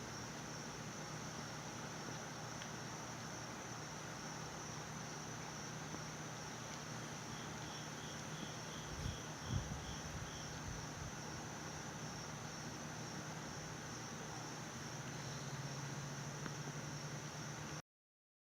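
Steady high-pitched drone of an insect chorus over an even background hiss. Midway comes a short run of about eight quick, evenly spaced chirps, followed by a single low thump. Everything cuts off abruptly near the end.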